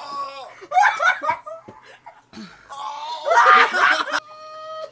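Several young men laughing and shrieking, with a loud outburst about three seconds in and one held high vocal cry near the end.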